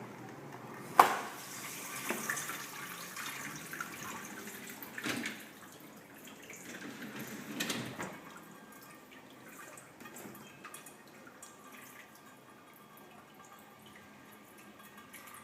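Brastemp Sexto Sentido dishwasher running, water splashing and dripping inside the tub in surges, with a sharp click about a second in; after about eight seconds the water sound settles to a quieter, steady wash.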